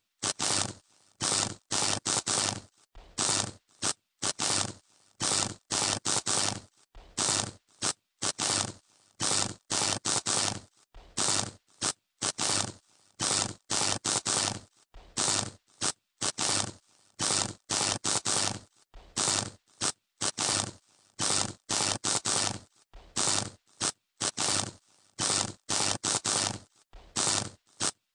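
Electrical short circuit arcing and buzzing in rapid, irregular bursts, each a fraction of a second long, cutting in and out over and over.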